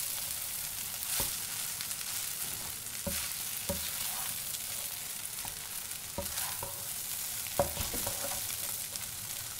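Cooked basmati rice sizzling in a nonstick frying pan as it is stirred and turned with a wooden spatula, with a steady hiss and several light knocks of the spatula against the pan.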